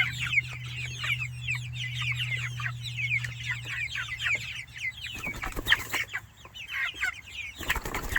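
A flock of five-week-old Freedom Ranger meat chickens peeping and cheeping, many short falling chirps overlapping without pause. A low steady hum sits under them and stops about halfway through.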